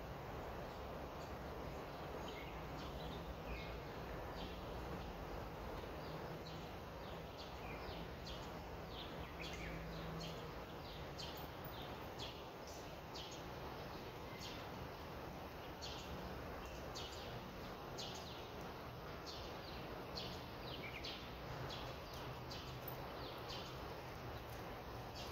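Small birds chirping on and off, short high calls scattered irregularly over a steady background noise.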